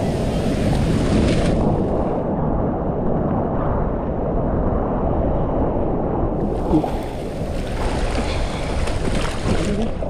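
Ocean surf washing around a camera held at water level, under a steady low rumble. A high foamy hiss comes twice, once in the first second or two and again from about six and a half seconds in.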